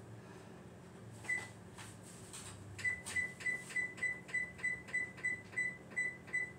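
Electronic beeps from a kitchen appliance's timer keypad as the timer is set. A single beep, then a quick even run of about a dozen identical high beeps, about three a second.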